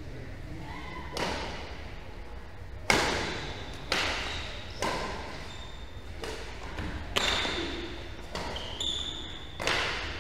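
Badminton racket strings striking a shuttlecock back and forth in a rally, eight sharp hits about a second apart, each echoing in a large hall.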